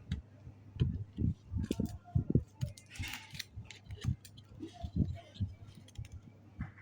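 Small tools and phone parts handled on a workbench: irregular light knocks and clicks, with a short hiss about three seconds in, over a faint steady hum.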